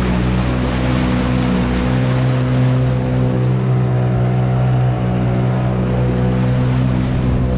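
Boat motor running steadily at cruising speed, a constant low hum over the rush of water along the hull.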